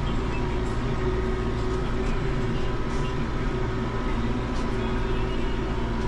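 New Holland tractor engine running steadily, heard from inside the cab: an even drone with a faint steady whine above it.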